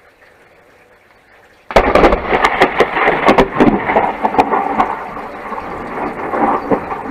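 Thunder from a close lightning strike: a sudden, very loud crack breaks about two seconds in, followed by rapid crackling and a heavy rumble that slowly fades. Light rain hisses underneath before the crack.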